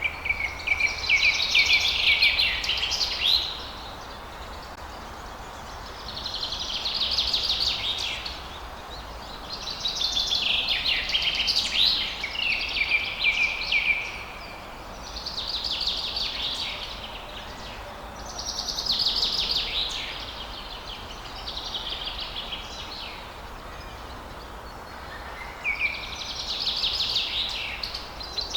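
A songbird singing short, repeated song phrases of about two to three seconds each, roughly one every four seconds, over a steady faint background hiss.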